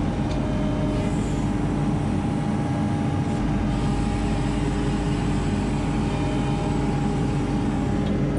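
ASV RT-40 compact track loader's diesel engine running steadily under load as the bucket digs and lifts dirt and sod, heard from inside the operator's cab.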